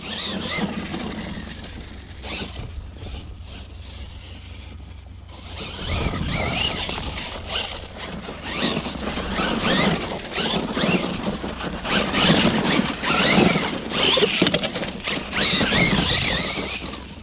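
Losi LMT Gravedigger RC monster truck's electric motor and all-metal-gear driveline whining, rising and falling in pitch again and again as the truck speeds up and slows. The whine is louder from about six seconds in, with a low rumble underneath.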